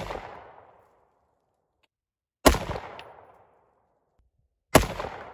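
AR-15 rifle fired two slow single shots a little over two seconds apart, each sharp crack trailing off in a short echo. The echo of a previous shot is still dying away at the start.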